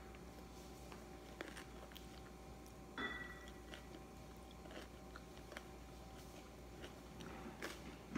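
Faint biting and chewing of a fresh rice-paper spring roll, with small wet mouth clicks and a louder bite about three seconds in.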